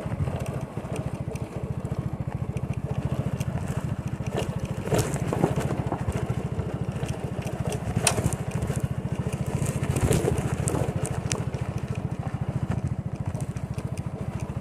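Small motorcycle engine running steadily at low revs, with scattered knocks and crackles from the bike jolting over a rough dirt track.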